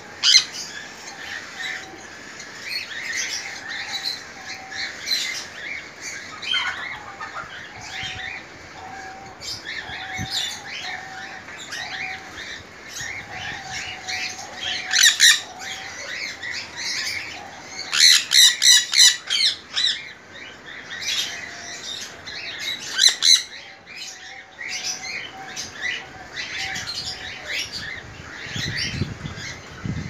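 Sun conures squawking in short, sharp calls over constant background chirping, with a few loud calls scattered through and a rapid run of about eight in quick succession a little past the middle.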